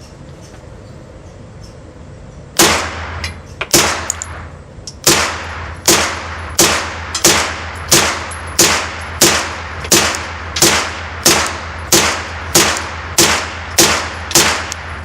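AR9 9mm carbine firing a string of about twenty shots. The first few come a second or so apart, then a steady pace of about two a second, each shot sharp with a ringing tail.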